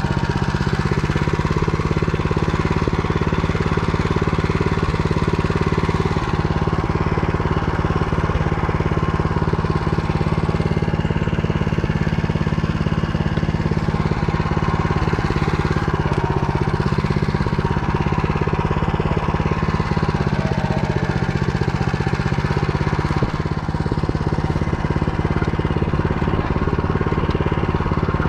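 Motor Sich walk-behind tractor's engine running steadily under load while pulling a reversible plough, with its pitch dipping briefly a couple of times past the middle. The motoblock is working hard in a heavy furrow slice, showing some shortage of power.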